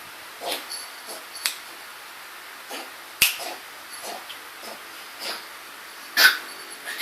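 A dog coughing in a series of short, irregular hacks, a few louder ones near the end, a cough the owner wonders may be kennel cough.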